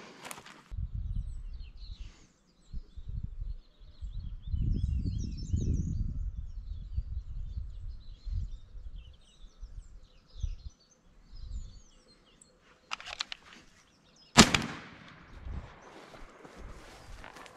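Wind buffeting the microphone, with small birds chirping high above it. About fourteen seconds in comes a single shotgun shot, the loudest sound, with a short echo trailing after it.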